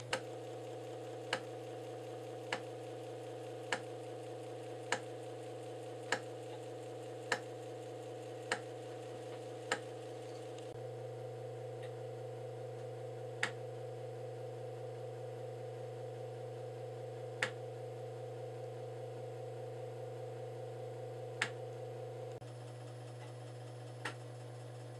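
5¼-inch floppy disk drive formatting a disk: the motor runs with a steady hum while the head steps on with a sharp click about once a second. About 11 s in the drive goes on to verifying the format, its sound changes and the head clicks only every four seconds or so.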